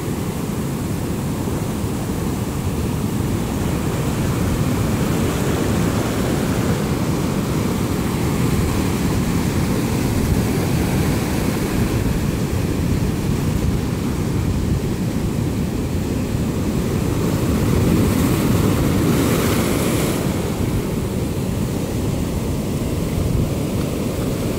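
Sea surf breaking and washing in foam around rocks at the shoreline, a continuous rush of water with a deep rumble of wind on the microphone. One brighter, hissing wash of foam comes about nineteen seconds in.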